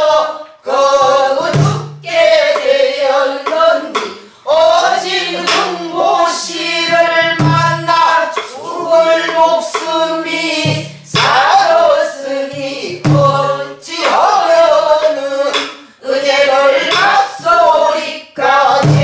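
Pansori singing: voices sing the melody in phrases of a few seconds with short breaks between them. Occasional low thumps come from buk barrel drums struck with sticks.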